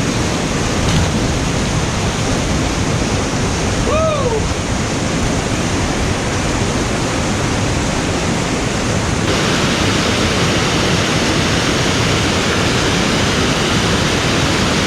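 Waterfall and cascade water rushing close by, a steady loud rush of noise that turns brighter and hissier about nine seconds in.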